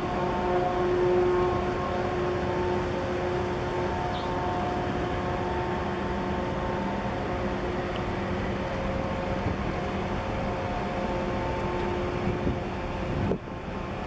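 Steady machinery hum of the passing 400 m container ship HMM Stockholm: a low, even drone with several steady tones that swell and fade over a constant rushing noise. The sound drops away suddenly near the end.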